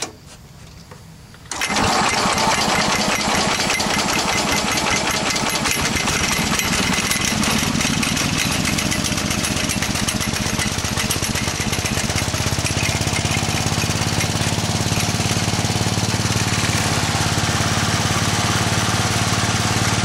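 Small gasoline engine starting about a second and a half in and running steadily, driving the belt over the re-riveted idler pulley. It settles into a steadier, lower note about twelve seconds in.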